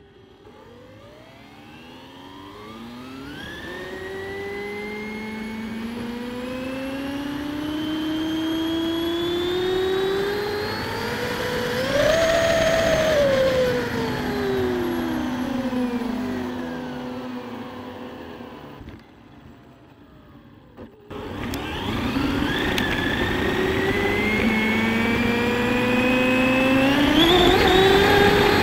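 Brushless electric motor and drivetrain of a high-speed RC car whining as it accelerates, heard from a camera mounted on the car. The pitch climbs steadily to a peak about halfway through, then falls away as the car slows to near quiet. After a short click, it accelerates again, the whine rising steeply.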